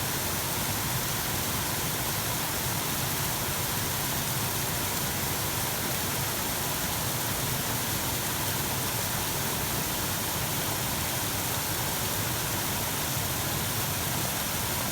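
Steady rushing of a mountain creek's waterfalls and cascades, an unbroken noise of falling water with no change in level.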